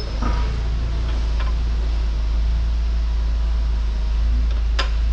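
Steady low hum of shop background noise, with a few faint handling ticks and one sharp metallic click near the end as hydraulic hard lines are worked into place on a loader frame.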